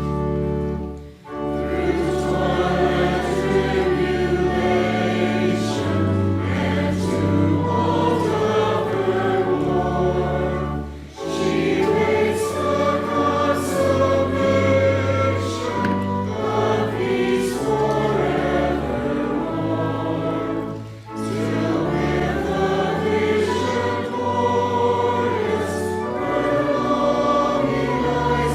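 A choir singing a hymn in sustained chords over low bass notes, with short breaks between phrases about every ten seconds.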